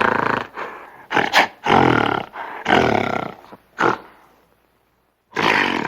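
Gorilla growling angrily in a string of loud, rough calls, some drawn out and some short, with a pause of about a second near the end before one more growl.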